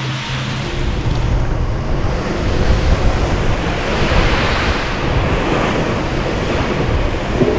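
Sea waves washing and surging, with wind buffeting the microphone; the surf swells up about two seconds in.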